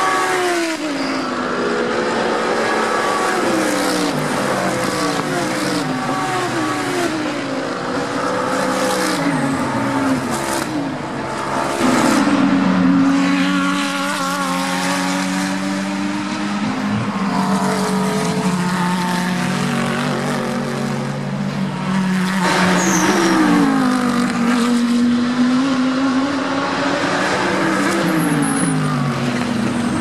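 GT3 race cars passing one after another at racing speed, their engine notes repeatedly falling and climbing through gear changes and as each car goes by. About twelve seconds in it gets louder, with a car holding a steady high note for several seconds.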